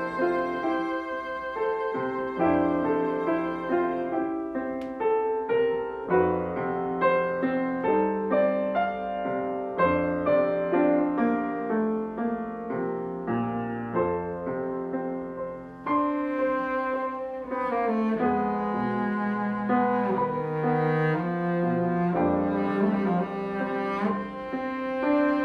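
Cello and grand piano playing a classical duo piece: the bowed cello line over piano accompaniment.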